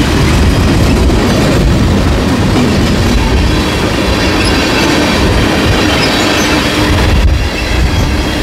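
Canadian National freight train cars rolling past at close range: a steady loud rumble and rattle of steel wheels on rail.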